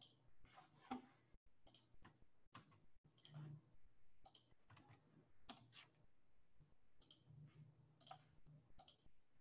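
Faint computer mouse clicks, many of them at an irregular pace, over near silence.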